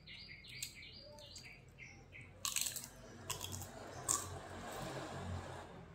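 A small bird chirping in quick repeated notes, about three a second, for the first couple of seconds. Then close mouth sounds of eating by hand: a few sharp smacks and soft chewing.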